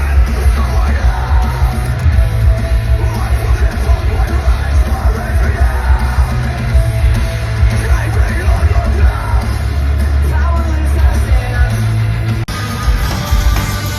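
Live heavy rock band playing loud, with yelled and sung vocals over distorted guitars and heavy bass and drums. The sound breaks off abruptly near the end and goes on with a different passage.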